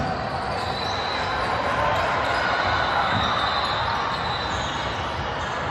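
Basketball game in progress: the ball bouncing on the court over a steady background hubbub of voices and movement in the gym.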